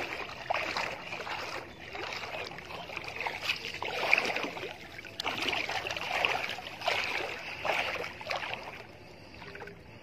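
Water splashing and sloshing in uneven strokes, dying down near the end.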